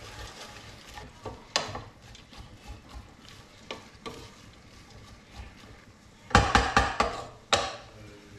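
Wooden spoon stirring sliced leeks in a stainless steel pot over a faint sizzle as they sweat down in oil with salt. A few light knocks of the spoon on the pot, then a quick run of louder knocks about six seconds in and one more just after.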